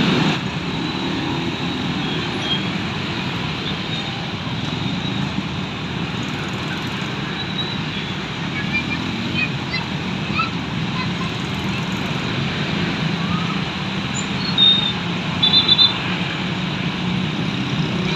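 Steady roadside traffic noise from passing vehicles, with a few short, high-pitched beeps near the end.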